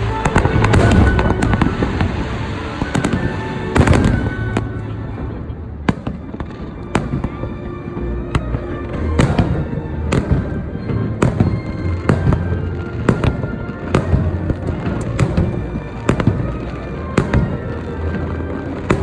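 Fireworks display: aerial shells bursting in a long irregular series of loud bangs, some in quick clusters, with music playing underneath.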